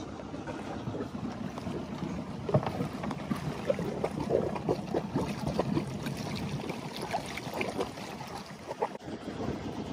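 Cooling-water outlet of a running 18 hp two-cylinder marine diesel spitting water from the hull side into the sea. The water splashes and gurgles in irregular spurts, busiest from about two seconds in, over the steady run of the engine.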